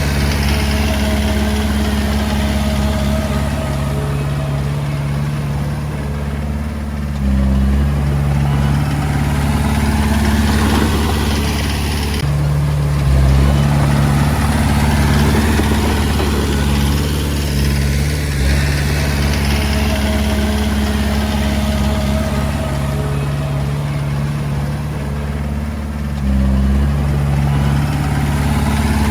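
Komatsu D20A bulldozer's diesel engine running steadily while working, its note stepping up and dropping back every five to eight seconds as the load changes.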